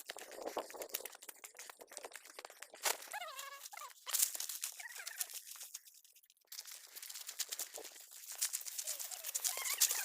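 Footsteps crunching and rustling on a dry trail, in irregular crackles. A short pitched sound that falls in pitch comes about three seconds in.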